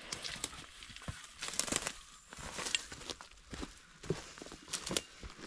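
Footsteps crunching and rustling through dry leaf litter, bark and twigs on a bush track, in irregular crackles.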